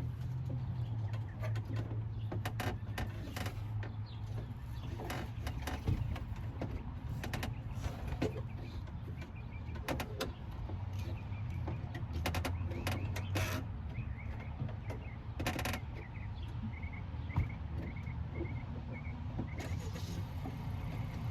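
Scattered clicks and knocks of a hand tool and metal parts inside a pickup truck's door as the new door handle's nuts are worked on, over a steady low hum. Near the end there is a short run of evenly spaced high chirps.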